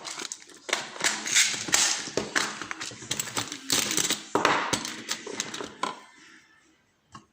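Small metal lock parts and tools clicking and rattling in quick, irregular taps as a challenge lock is taken apart (gutted). The clatter stops about a second before the end.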